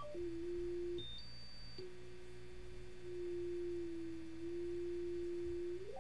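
Synthesized electronic sine tones of a computer 'connecting' sound effect. A single low steady tone is broken about a second in by a short high beep that steps up once in pitch, then the low tone returns and holds until it starts to sweep upward at the very end.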